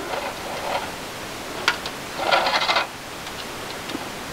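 Insulated hookup wire being handled as a length is pulled off its supply: a sharp click, then a short rustling scrape of the wire.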